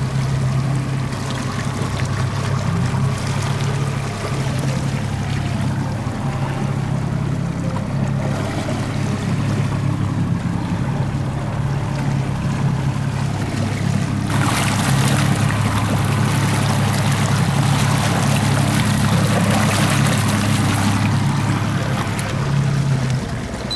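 Small fishing boat's engine running steadily under way, with water rushing and splashing along the hull. A louder hiss of water joins a little past halfway, and near the end the engine hum cuts out as the throttle is pulled back.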